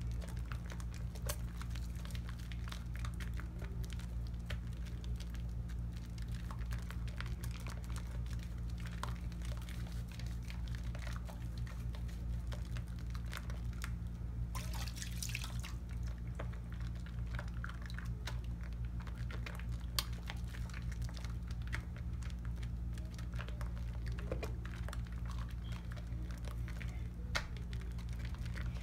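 Soapy hands lathering a bar of cocoa butter soap: wet squishing with a fine crackle of popping foam. About halfway through there is a short watery splash as the hands go into the water in the basin, over a steady low hum.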